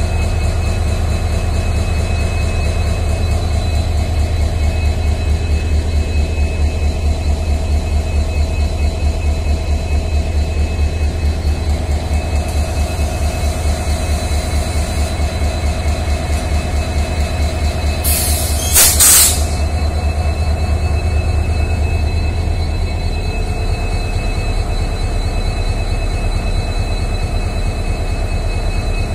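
WDP4 diesel locomotive's two-stroke EMD 16-cylinder engine idling with a steady, deep rhythmic throb. About two-thirds of the way through there is a loud hiss lasting about a second and a half.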